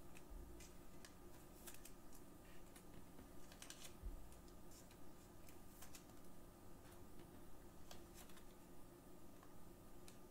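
Faint, irregular clicks and soft rustles of trading cards being handled and slid into plastic sleeves.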